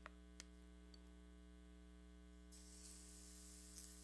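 Near silence under a steady electrical mains hum, with two small clicks near the start. About two and a half seconds in, a faint sizzle begins as crepe batter goes into the hot frying pan.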